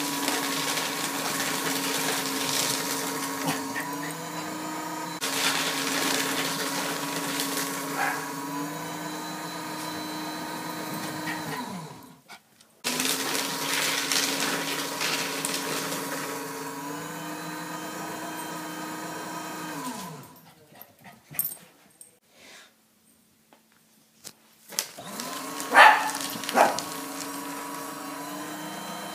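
Paper shredder motor running in long stretches, winding down and stopping twice before starting again. A dog gives a few sharp barks, in the pause and over the restart.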